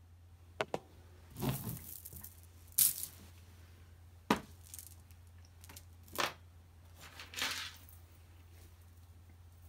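Strands of gemstone chip beads and other costume jewelry being handled on a towel, clinking and rattling in a handful of short, sharp bursts.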